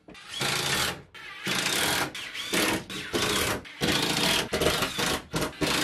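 Ryobi cordless drill-driver running in short bursts, about seven in a row, driving screws to fasten a plywood sheet to the wall.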